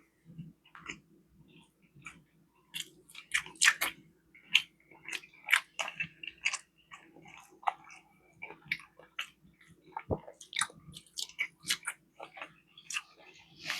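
A person chewing food close to the microphone: a run of irregular clicks from the mouth, over a faint steady hum.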